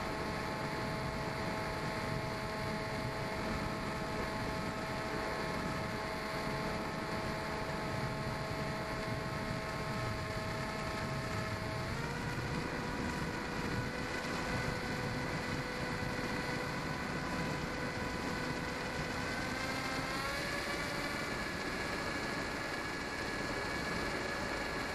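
Small electric model plane's brushless motor and propeller running steadily as a whine over a hiss of wind, the whine stepping up in pitch about twelve seconds in and again about eight seconds later.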